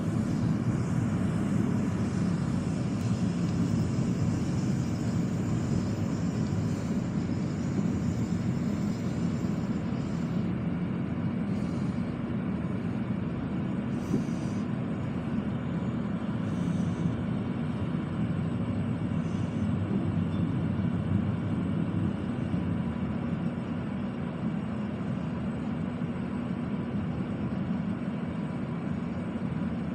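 Passenger train running along the track, heard from inside a car: a steady low rumble of wheels on rails.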